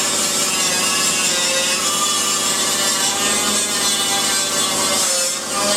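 Power grinder abrading the steel bodywork of a Ford Escort Mk1 boot-floor area, running steadily under load, with a brief dip about five seconds in.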